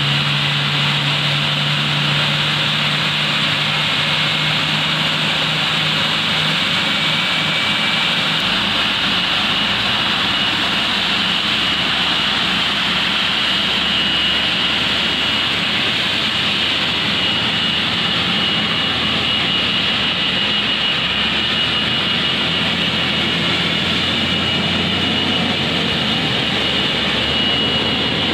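Jet turbine noise from a Boeing 777-240ER on the ramp: a steady loud rush with a thin high whine over it. Underneath runs a lower engine hum that shifts pitch a few times.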